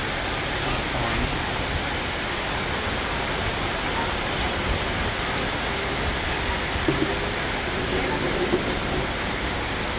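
Steady, even rain-like hiss, with faint voices briefly about seven to nine seconds in.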